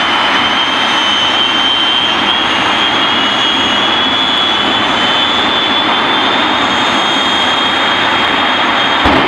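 Jet engine running steadily, a loud roar with a high whine that creeps slightly up in pitch. A brief louder knock comes just before the end.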